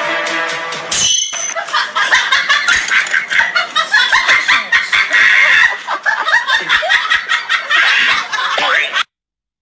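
People laughing in many quick bursts, starting about a second in after a snatch of music and cutting off suddenly near the end.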